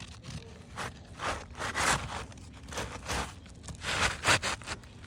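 Gritty scraping and crunching on an asphalt shingle roof, in a run of short, uneven strokes, the loudest about two seconds in and again about four seconds in.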